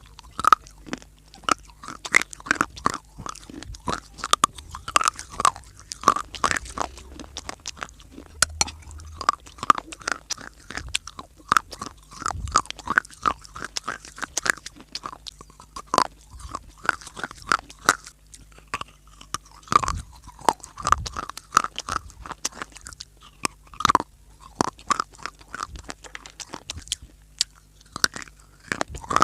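A person biting into and chewing crunchy dry clay, a continuous, irregular run of sharp crunches and crackles, several a second.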